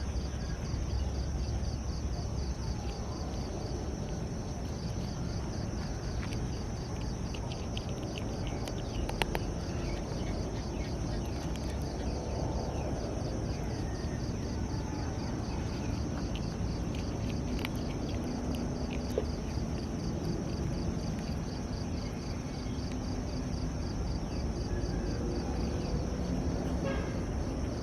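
Insects chirping in a fast, even rhythm over a steady background hiss, with a few light clicks scattered through the middle.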